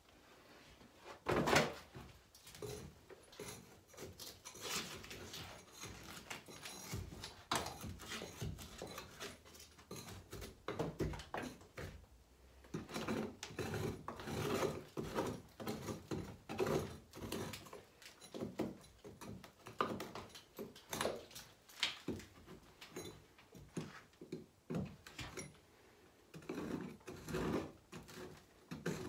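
A large sheet of painted-over sand-wall coating lands on the floor with a sharp slap about a second and a half in. Irregular scraping, tearing and crumbling follows as gloved hands pick and peel the rest off the wall. The old sand wall has deteriorated so far that it comes away with very little force.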